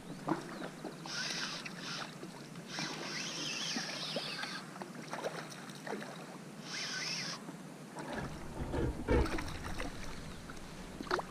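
Water splashing and sloshing in shallow flood water as a hooked mullet thrashes at the surface and is drawn in by hand. It comes in irregular bursts, with low bumps and a few sharp clicks near the end.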